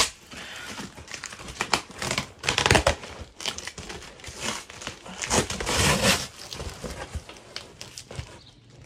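Packing tape ripped off a cardboard box by hand and crumpled packing paper rustling, in irregular bursts of crinkling and tearing that fade near the end.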